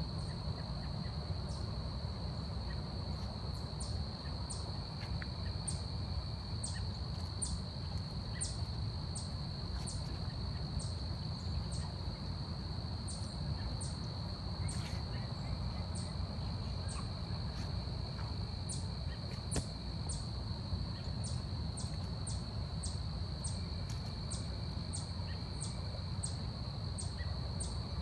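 Forest insect chorus: a steady high-pitched trill runs throughout, while short, very high chirps repeat about once a second over a steady low rumble.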